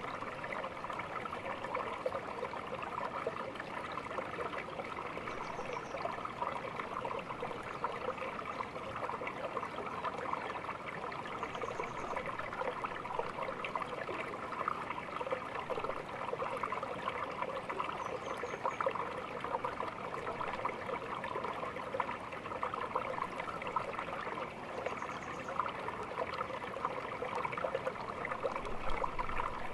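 A small stream babbling and trickling over stones, a steady rush of running water.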